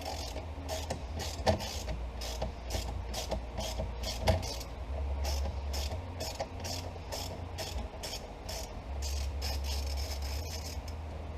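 Ratchet wrench with a 10 mm socket clicking in a long series of sharp, quick clicks, about three a second, as a wire's nut is backed off.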